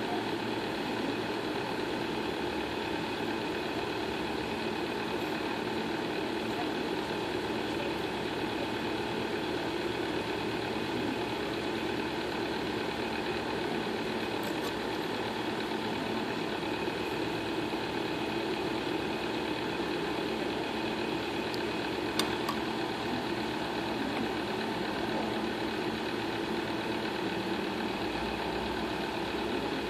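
Steady machine hum, a motor running without change, with one short click about two-thirds of the way through.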